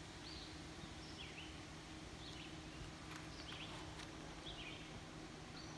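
Quiet woodland ambience: a bird chirping repeatedly, short high chirps about once a second, over a faint low steady hum.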